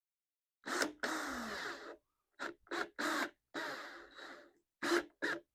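Craftsman 20-volt cordless drill run in a string of short trigger bursts, driving screws into a wooden frame. One longer run winds down with a falling pitch.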